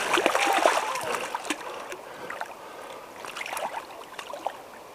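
Water splashing as a steelhead caught by hand thrashes, loudest in the first second or so, then dying down to a few scattered splashes over the running river.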